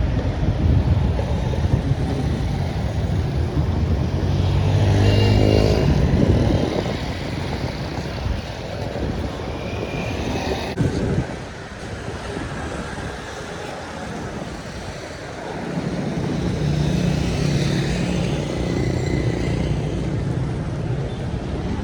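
Street traffic: motor vehicle engines passing close, one rising in pitch about five seconds in, and another engine drone building about sixteen seconds in.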